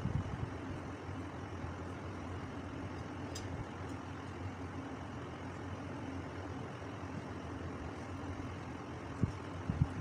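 Steady low mechanical hum, with a few soft knocks near the end.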